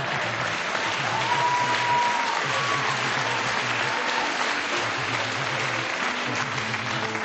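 Audience applause, a dense clapping noise, over background music with low notes underneath.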